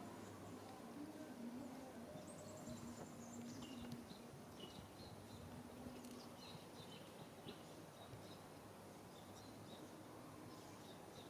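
Faint outdoor ambience with scattered short bird chirps and a quick descending trill, over a faint low hum that comes and goes.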